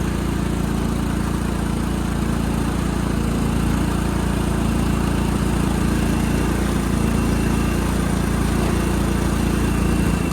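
1999 Cub Cadet HDS 2135 riding mower engine running steadily soon after a cold start, at an even pitch with a faint high whine coming and going.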